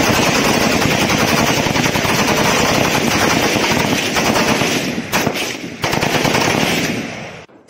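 Several 5.56 mm INSAS-pattern assault rifles firing full-auto at once, their bursts overlapping into a continuous stream of shots. The fire breaks briefly twice a little after five seconds, thins out, and stops shortly before the end.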